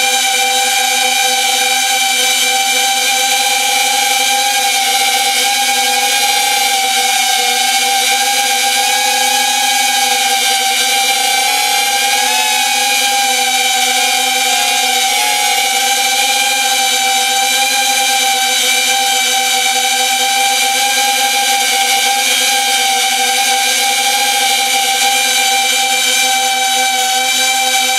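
Hover Passport camera drone's motors and propellers whining at a steady pitch in flight, with a couple of slight wobbles in pitch as it changes speed.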